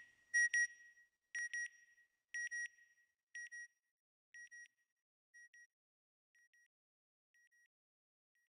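Electronic double beep, two short high blips, repeating about once a second and growing fainter with each repeat until it dies away near the end, like an echo.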